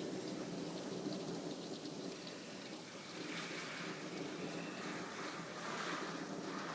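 Rain falling steadily in a thunderstorm, an even hiss with faint scattered drop ticks.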